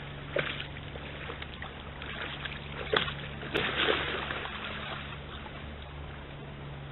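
Red deer wading and bounding through a swollen stream: splashing near the start, the loudest splashes about three to four seconds in as it leaps out at the bank, then the stream's steady running water.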